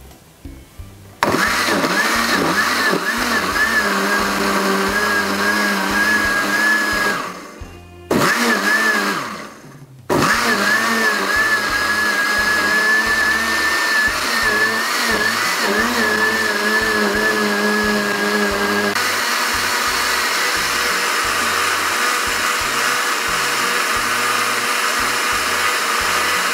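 Countertop blender running, blending chopped pandan leaves with water into a green liquid. It starts about a second in, stops briefly twice around seven and ten seconds, then runs on. The motor whine wavers in pitch at first and turns to an even whir about two-thirds of the way through.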